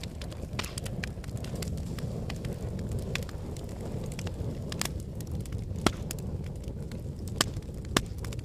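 Wood fire burning in a fireplace: a steady low rumble of flames with frequent crackles and snaps, and a few louder pops about six, seven and a half and eight seconds in.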